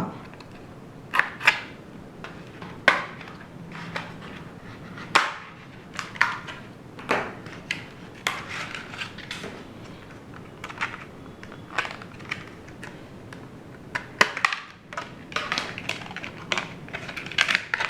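Packaging of a DDR4 RAM stick being opened and handled: a scattered run of sharp clicks and crackles, a few of them louder.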